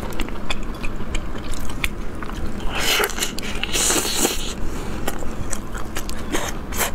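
Close-up mouth sounds of someone biting and chewing a crisp Old Beijing shaobing flatbread filled with meat: many small crackling crunches, with two longer, louder crackly crunches around the middle.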